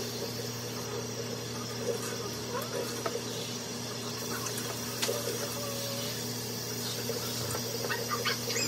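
Water running from a pull-down kitchen faucet sprayer onto wet hair and splashing into the sink, over a steady low hum.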